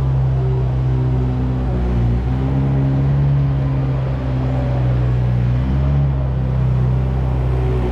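Tractor engine running steadily, a deep hum whose pitch shifts slightly a few times.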